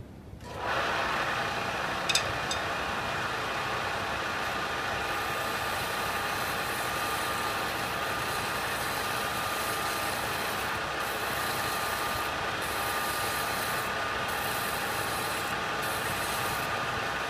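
Bench belt-and-disc sander switched on about half a second in and running steadily, its motor and belt giving a steady whir with several pitches. A wooden dowel is held against the spinning sanding belt and rotated, adding a hissing sanding noise that comes and goes, with one sharp knock about two seconds in.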